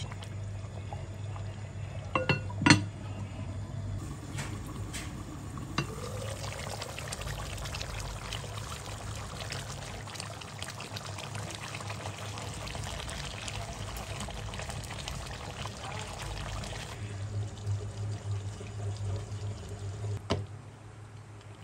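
Thick curry sauce bubbling and crackling as it simmers in a pan. A few sharp knocks of a wooden spatula against the pan come about two to three seconds in. Softer bumps and a plop follow near the end as cream is dropped in.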